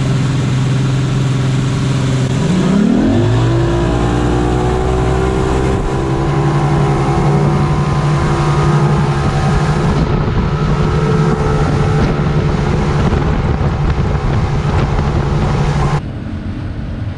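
Evinrude 200 hp two-stroke outboard on a RIB running under way. About three seconds in it is throttled up, rising in pitch, and then holds a high steady note at speed over the rush of wind and wake. Near the end the engine sound drops to a quieter wind-swept level.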